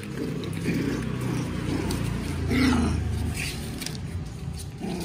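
Puppies growling as they play-fight, loudest about two and a half seconds in, with paws scrabbling on the cardboard box.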